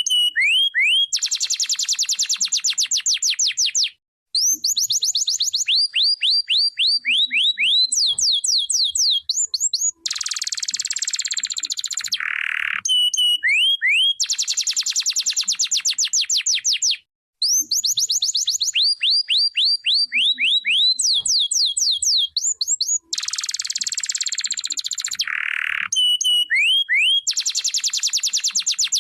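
Domestic canary singing: rapid trills of short rising whistled notes alternating with dense buzzy rolls. The same run of phrases repeats about every 13 seconds.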